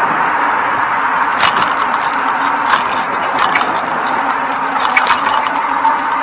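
Steady rushing ride noise from a bicycle-mounted camera rolling along a paved path, with a faint constant whine and a few sharp rattles as the bike goes over bumps.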